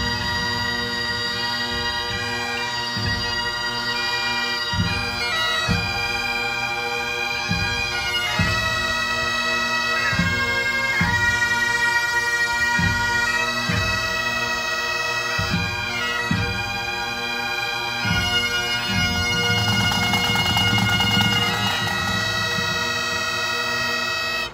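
A pipe band playing a tune: several Great Highland bagpipes with the melody running over their steady drones, and snare drums and a bass drum keeping a steady beat underneath.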